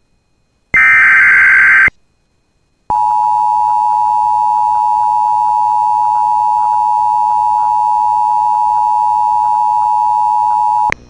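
Emergency Alert System signalling: a buzzy burst of SAME digital header data about a second long, then after a short gap the steady two-tone EAS attention signal (853 and 960 Hz) sounding for about eight seconds and cutting off. It announces that an emergency alert, here a blizzard warning, is about to be read.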